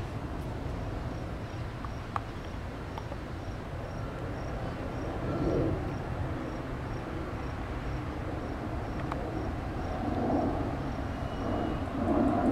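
Steady low outdoor rumble that swells about five seconds in and again near the end, with a faint high chirp repeating at even spacing.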